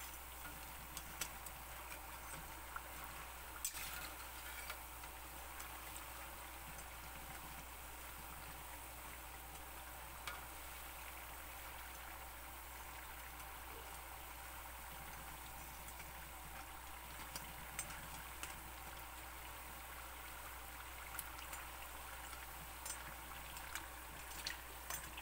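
Murukku deep-frying in hot oil: a faint, steady sizzle with scattered sharp clicks. The oil is still bubbling around the murukku, the sign that they are not yet done frying.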